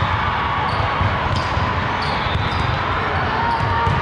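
Volleyballs bouncing and thudding on a hard gym floor, with short high squeaks scattered through.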